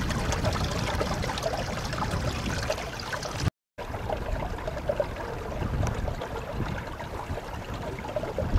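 Stream water running over rocks as a steady rush, which cuts out for a moment about three and a half seconds in.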